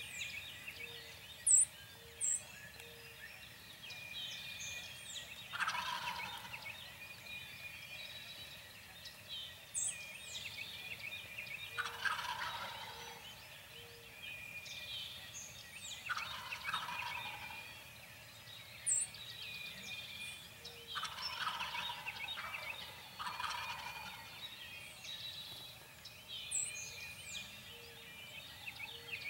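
Wild turkey gobbling repeatedly, about six rattling gobbles, the last three in quick succession. Small birds add sharp, high chirps, the loudest two about two seconds in.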